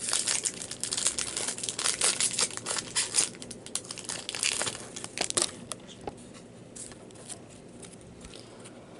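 Wrapper of a baseball card pack crinkling and tearing as it is opened, busy for about five seconds, then a few soft clicks as the cards are handled.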